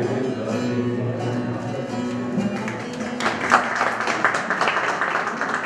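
Music on a plucked string instrument: picked notes at first, then about three seconds in a passage of fast, rapid strumming.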